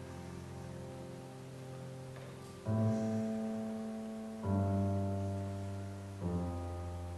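Slow piano chords: a held chord fades out, then three new chords are struck, roughly one every two seconds, each left to ring.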